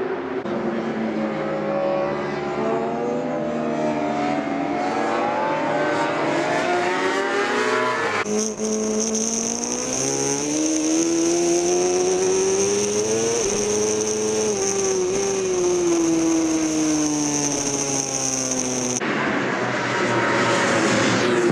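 Endurance-racing motorcycle engines at high revs, the pitch climbing and falling as the bikes accelerate and shift. From about eight seconds in, one engine is heard onboard with a steady high whine over it, rising to a peak and then winding down. Near the end, bikes are heard trackside.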